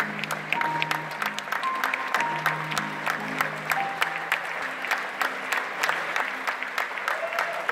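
Cinema audience applauding, the individual claps distinct, over the film's end-credits music with low sustained notes.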